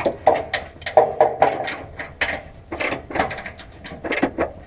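Hand ratchet wrench with a 14 mm socket clicking in short, irregular strokes on a bolt; the ratchet is turning the wrong way.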